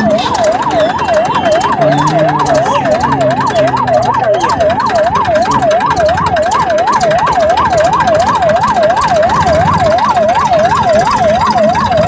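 Electronic siren in a fast yelp, its pitch sweeping up and down about three times a second without a break.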